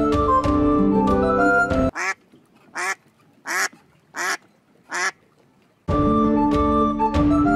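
Light background music stops about two seconds in. A duck sound effect follows: a run of quacks, about one every 0.7 s. The music comes back near the end.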